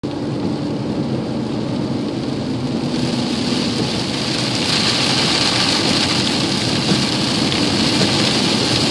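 Heavy rain pounding on a truck's roof and windshield, heard from inside the cab over the vehicle's road noise; the rain grows heavier about halfway through.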